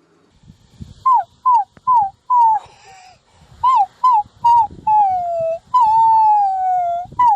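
Dog whining and howling: a run of short, high cries that drop in pitch, then longer drawn-out howls sliding downward.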